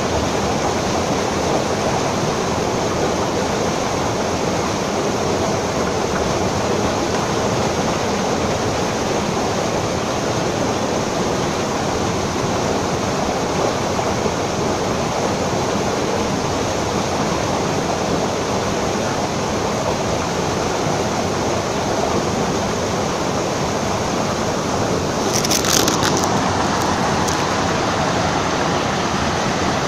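Water pouring from an outlet into a concrete pool, a loud, steady rushing. A few brief clicks come near the end.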